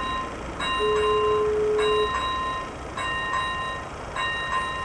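AŽD ZV-01 electronic level-crossing bell ringing its repeated warning ding, about two strikes a second, sounding while the crossing's warning lights are active. A steady lower tone also sounds for a little over a second, starting about a second in.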